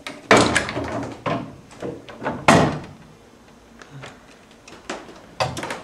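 Hand-operated iron printing press being worked, giving several heavy knocks and clunks; the loudest come about a third of a second in and at two and a half seconds.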